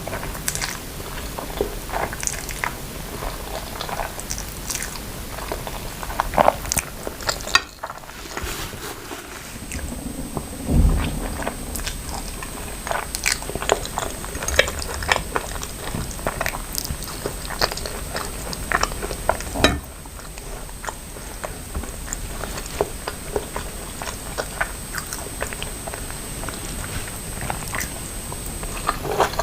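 Close-miked chewing and biting of noodles with grilled chicken and vegetables: a steady run of short crisp clicks and mouth sounds, with a soft low thump about eleven seconds in.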